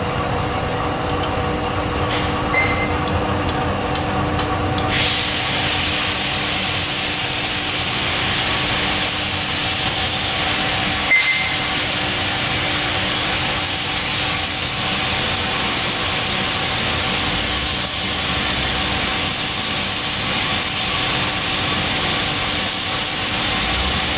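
Metal lathe running with a faceplate spinning, giving a steady hum, and from about five seconds in a steady hiss as a boring bar cuts the hole in a 1-inch mild steel plate part, boring it out.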